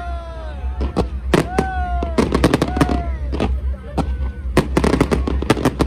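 Fireworks display: a rapid, irregular series of sharp bangs and crackling reports from aerial shells and fountains, with several short tones that fall in pitch, over a steady low rumble.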